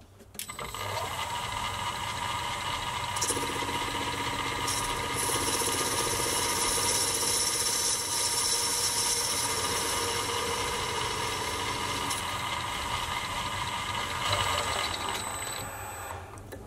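Mini-lathe motor starting with a rising whine about half a second in, then running steadily. From about 3 to 12 seconds a harsher, hissing cutting sound joins it as the tool cuts the end of the spinning workpiece. The lathe winds down near the end.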